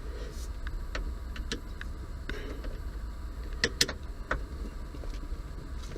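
Scattered light clicks and taps of dashboard trim, screws and hand tools being handled, with two sharper clicks close together a little past the middle, over a low steady rumble.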